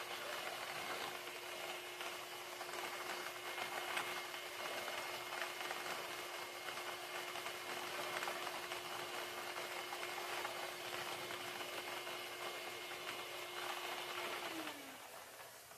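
Lottery ball-drawing machine running: a steady hum from its blower mixing the balls, with faint clicks of the balls knocking about in the drum. Near the end the machine switches off and its hum drops in pitch as it winds down.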